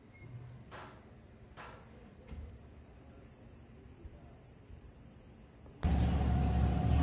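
Steady high-pitched chirring of insects, with a few faint scrapes. About six seconds in the sound cuts abruptly to a loud low rumble.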